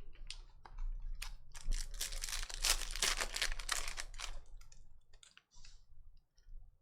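Chrome trading cards being handled and flipped through by hand: a run of rapid clicks and rustling, densest in the middle and thinning out toward the end.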